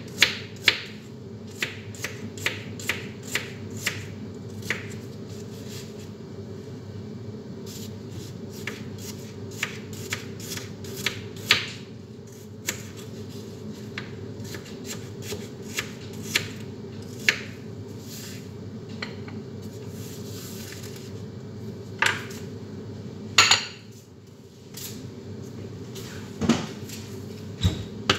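Kitchen knife slicing bitter gourd (ampalaya), each cut ending in a sharp tap, at an uneven pace of about one or two a second, over a steady background hum. A few louder knocks come in the last several seconds.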